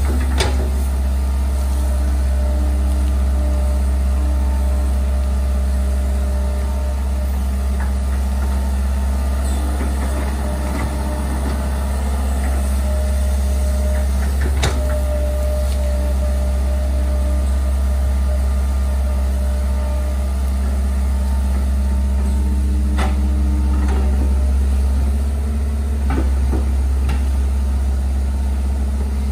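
Hitachi hydraulic excavator's diesel engine running steadily and loudly while it digs a trench, with a few sharp knocks along the way.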